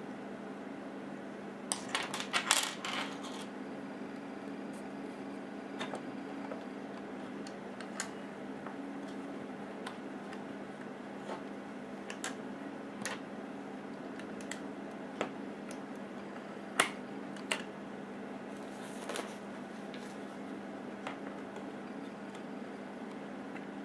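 Plastic Lego pieces clicking and rattling as they are handled and pressed together. A quick cluster of clicks comes about two seconds in, then scattered single clicks follow, the sharpest about two-thirds of the way through, over a steady low hum.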